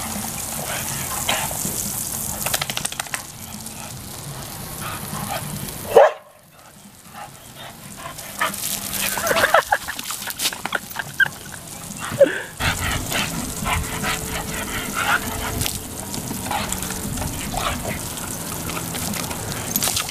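A dog barking and yipping as it jumps and snaps at the spray from a garden hose, over the steady hiss of the hose water.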